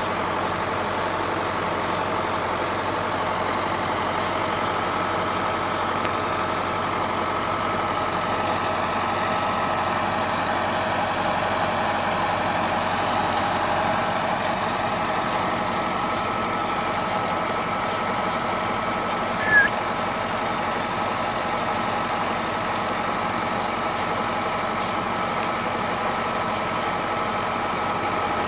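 Crawler tractor's diesel engine idling steadily. A single short, high-pitched squeak cuts in once about two-thirds of the way through.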